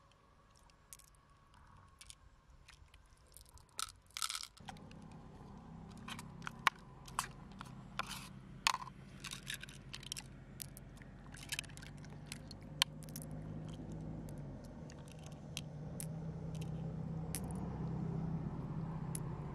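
Pearls clicking and clinking against one another as fingers pick them out of freshwater mussel flesh, with small wet scrapes of the mussel meat. A steady low motor hum comes in about four seconds in and grows louder near the end.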